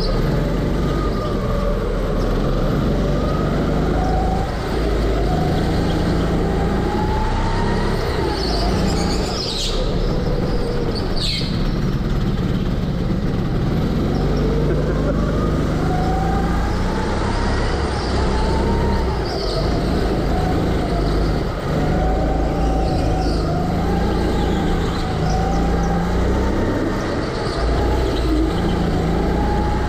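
Go-kart running laps, heard from its own driver's seat: the motor's pitch keeps rising and falling as it speeds up on the straights and slows for the corners, with other karts running close by.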